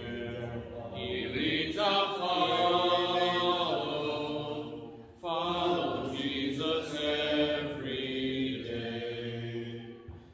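Congregation singing a hymn a cappella, with no instruments, led by a man's voice. The phrases break off briefly about halfway through and again near the end.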